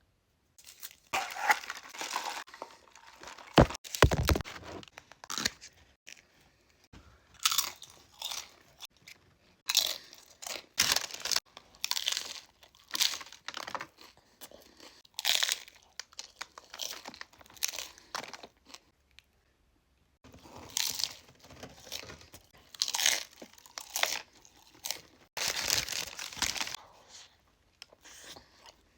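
Close-miked eating of Taco Bell food: repeated crunchy bites and chewing, in uneven bursts with brief pauses. A low thump about four seconds in.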